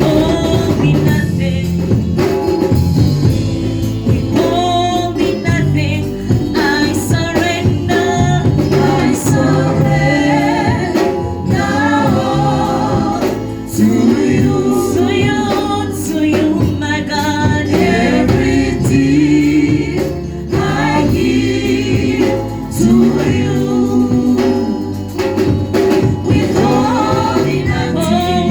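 Gospel music in church: voices singing over a band, with a steady drum beat and bass.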